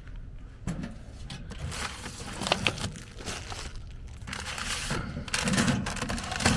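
Metal curbside mailbox latch and door clicking open, followed by a package crinkling and rustling against the mailbox as it is pulled out.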